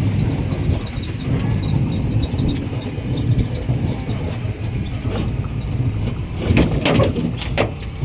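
A motor running with a steady low rumble, with a few short sharp noises near the end.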